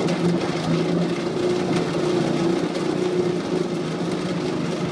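Large cat exercise wheel spinning as a kitten runs in it: a steady whir with a low hum.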